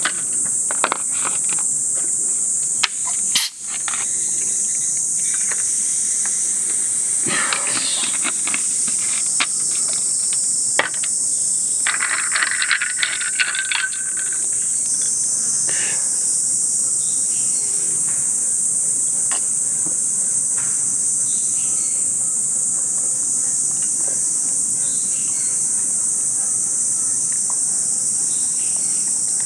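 Steady high drone of summer insects throughout. A sharp click comes a few seconds in, and carbonated water is poured, fizzing, into a glass of ice around the middle.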